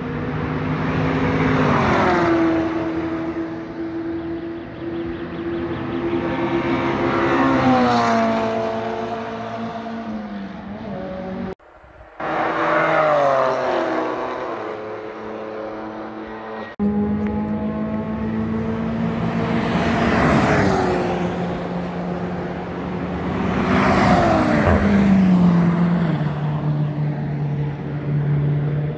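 Several cars passing at speed one after another on a race track's straight, about five pass-bys, each engine note falling in pitch as the car goes by. The sound breaks off abruptly twice, about halfway through and again a few seconds later.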